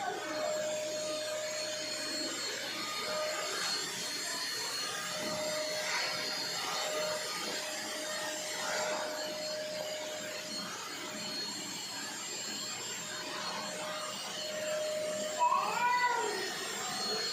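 Vacuum cleaner running steadily, its motor giving a constant whine over a rushing hiss. About fifteen seconds in, a brief high-pitched call rises and falls over it.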